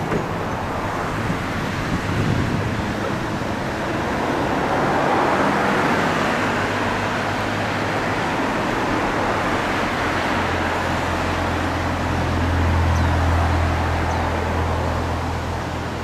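Steady rumble of passing vehicles, with a low engine hum that grows louder about ten seconds in and eases off near the end.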